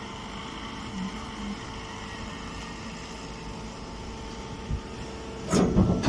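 Mini straw baler machine running with a steady motor hum; about five and a half seconds in, a louder rough clattering starts up.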